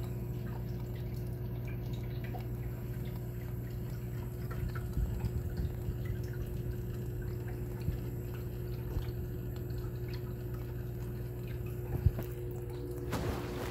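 Reef aquarium running: water trickling and dripping over a steady low hum, with small irregular drips throughout. There is a sharper click about twelve seconds in and a brief splash of water near the end.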